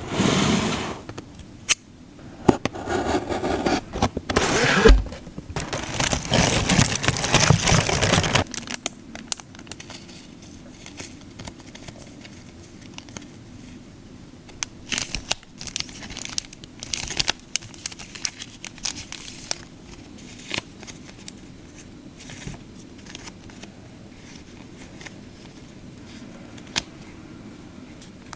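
Packaging torn open and plastic wrap crinkled, loud for about the first eight seconds, then quieter rustling and light taps as the paper stationery is handled.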